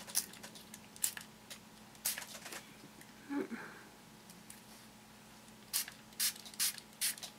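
A small hand-pump spray bottle squirts water in four short bursts about six seconds in, wetting Pixos beads to fuse them. Faint clicks and taps of the small plastic beads being handled come before the bursts.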